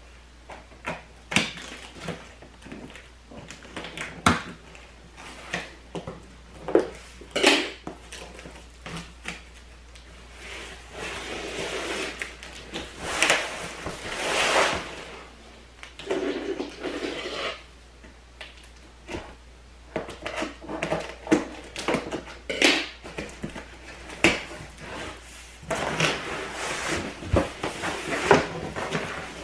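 A large cardboard box being opened and its packed contents pulled out: cardboard scraping, sliding and rustling, with many scattered sharp knocks and taps.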